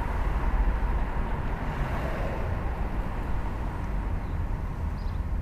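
Steady wind and road noise of a Mercedes-Benz convertible driving with the roof down, a constant low rumble of wind over the open cabin mixed with tyre and engine noise.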